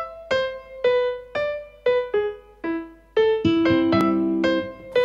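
Background piano music: a slow melody of single struck notes, each fading out, about two a second. Lower chords join about three and a half seconds in.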